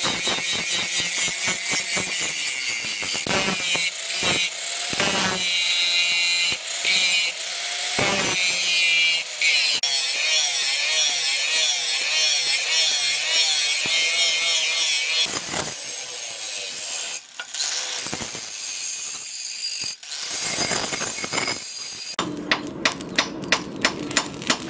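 Steel being worked in a blacksmith's shop: dense, rapid scraping and clicking of tool on metal, then near the end a run of sharp, evenly spaced knocks, about four a second.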